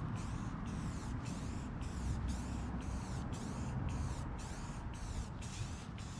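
Spray paint hissing in quick sweeping passes, the hiss breaking off briefly about twice a second, as a light first coat goes onto a car's front lip.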